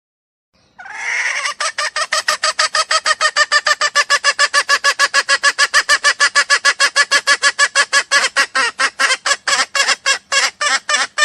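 Junglefowl call played as a lure: one short call, then a long, fast, even run of clucks at about five a second that slows slightly near the end.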